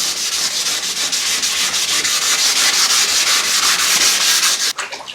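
Hand sanding of a car's body panel with fine wet-and-dry sandpaper: a loud, even scratching hiss of rapid back-and-forth strokes that stops abruptly near the end.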